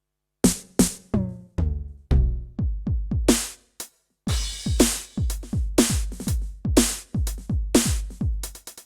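Yamaha DTX720k electronic drum kit with a DTX700-series module, playing an electronic-style kit voice: a fill of hits whose pitch drops after each stroke, a short gap, then a steady beat of deep kick-like hits and sharp strikes, ending in a quick run of strokes.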